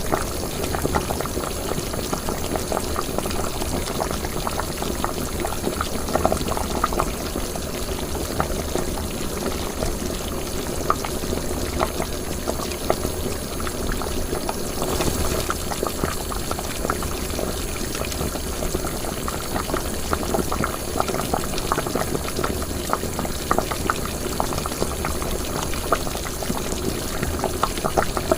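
Liquid boiling in a cooking pot: steady bubbling made of many small, rapid pops that never let up.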